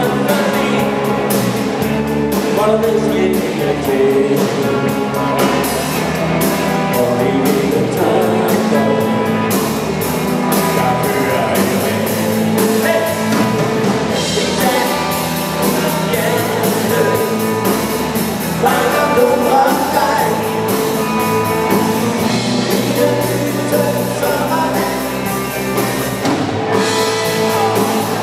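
Live rock band playing a rock and roll number: electric guitars and a drum kit with a sung vocal, steady and loud throughout.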